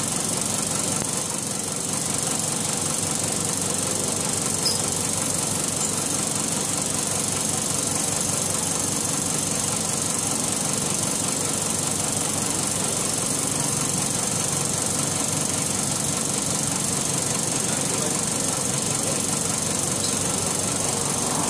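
Wall-mounted exhaust fan running noisily: a steady drone with a high hiss and several constant tones, unchanging throughout.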